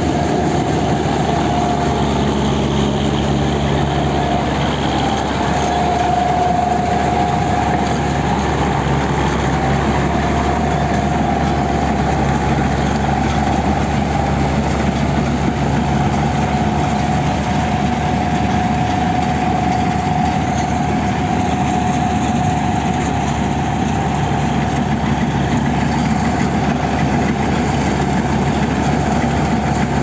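Self-propelled combine harvester running as it cuts and threshes rice: a loud, steady engine and machinery drone with a continuous whine over it.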